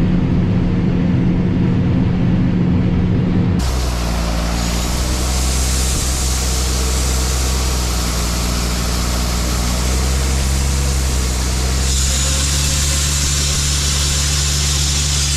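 Diesel engines of harvest machinery running steadily. About three and a half seconds in the sound switches abruptly to a deeper engine note with a loud hiss over it.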